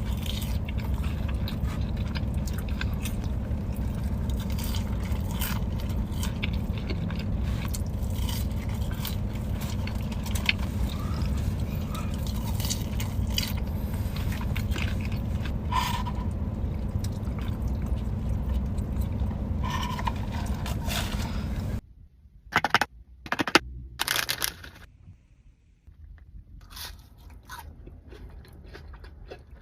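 Close-miked mukbang eating of burgers and fries: crunchy bites and wet chewing, at first over a steady low hum. The hum stops abruptly, and a few loud crunchy bites follow against a much quieter background.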